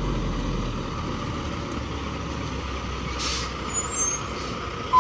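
Diesel dump truck running steadily at low revs, with a short hiss of released air brakes about three seconds in.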